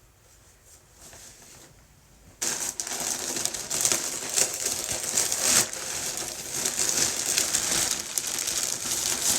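Near quiet for about two seconds, then packaging crinkling and rustling steadily as a parcel is handled and opened.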